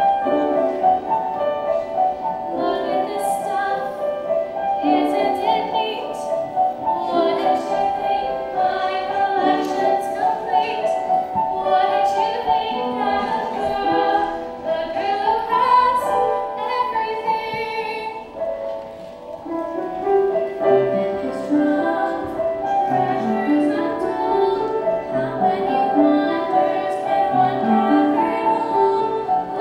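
A girl singing a musical-theatre solo over instrumental accompaniment, the voice holding and sliding between notes, with the accompaniment's lower notes coming forward about two-thirds of the way through.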